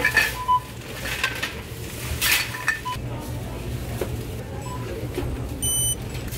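Plastic shopping bag rustling and light clattering while items are bagged at a store self-checkout, with short electronic checkout beeps in the first few seconds. One higher, brighter beep comes near the end. A steady low hum runs underneath.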